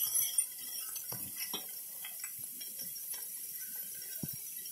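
Metal spatula scraping and clicking against an iron kadai as chopped onions are stirred in oil: a handful of light, irregular clicks over a faint steady hiss of the frying.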